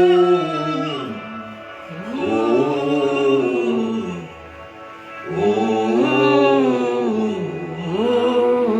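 Slow worship music carried by a voice singing long, drawn-out notes without clear words, in three swelling phrases that rise and fall in pitch.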